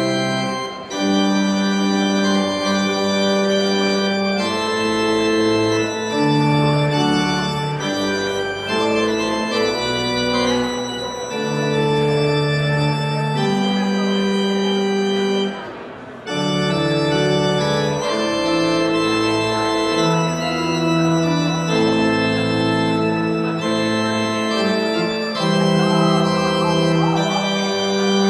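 Pipe organ playing sustained chords that change every second or two, with a brief break about sixteen seconds in.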